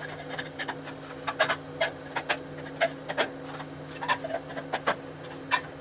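Hand tools knocking and scraping on masonry in quick, irregular taps, over a steady low hum.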